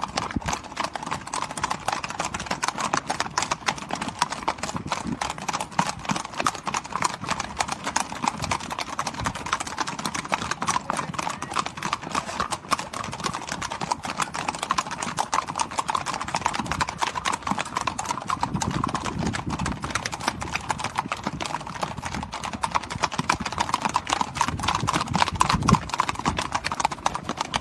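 The hooves of a herd of Icelandic horses crossing a bridge, a dense, continuous clatter of many overlapping clip-clops that grows a little louder near the end.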